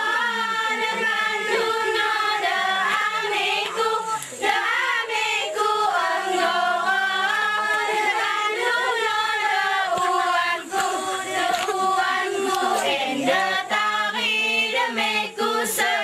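A group of young women and girls singing together in unison, unaccompanied, in the long chanted phrases of an Alas mesekat dance song. A few sharp hits stand out now and then, the clearest near the end.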